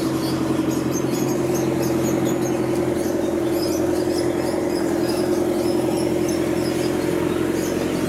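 A steady, loud mechanical hum that holds one pitch, with small parrots chirping faintly and repeatedly above it.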